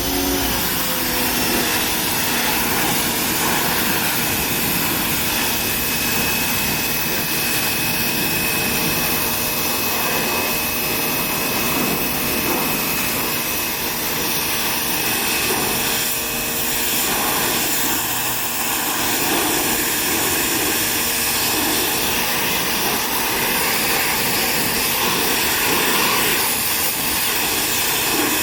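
Electric pressure washer running, its water jet spraying in a steady loud hiss, with a faint steady high whine from the unit's motor and pump.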